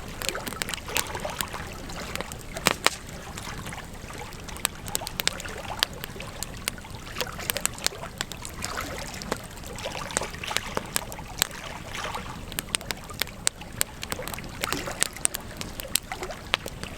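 Campfire crackling: frequent sharp, irregular pops and snaps over a steady hiss.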